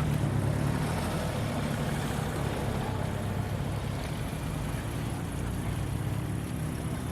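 An engine running steadily at idle, a low even hum with no revving.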